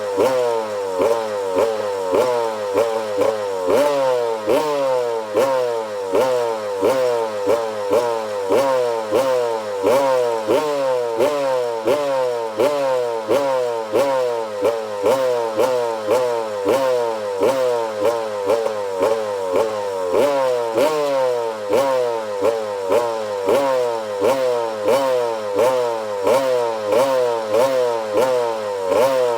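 Freshly rebuilt 2006 Yamaha YZ125 single-cylinder two-stroke engine running, the throttle blipped over and over so the revs rise and fall about one and a half times a second.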